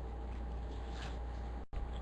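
Steady low electrical hum and hiss of the recording chain between words, with no distinct event; the sound drops out completely for an instant near the end.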